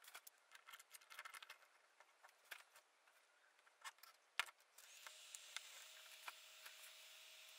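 A few faint clicks and taps, the sharpest about four and a half seconds in, then from about five seconds in a steady airy hiss with a faint whine: the hot air gun's fan blowing as the home-built hot air station is switched on.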